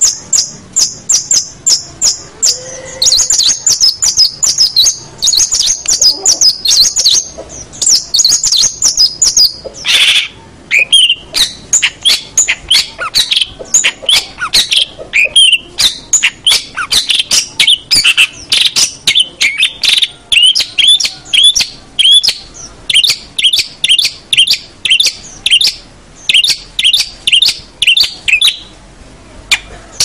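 Long-tailed shrike (cendet) singing a rapid, unbroken stream of short sharp notes, several a second. The notes are high-pitched at first and drop to a lower run about a third of the way in.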